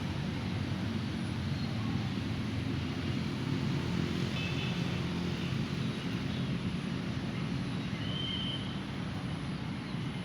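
Steady low rumble of road traffic. A few short, high bird chirps come through about four and a half seconds in and again near the end.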